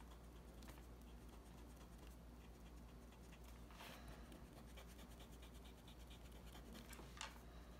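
Faint rubbing of an eraser on a pencil sketch on postcard paper. It begins with a soft scrape, then runs in quick, even back-and-forth strokes for a few seconds, with one sharper scrape near the end.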